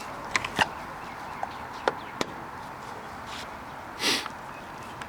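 A few sharp clicks and light knocks of handling, then a short rustling hiss about four seconds in, over a steady faint background hiss.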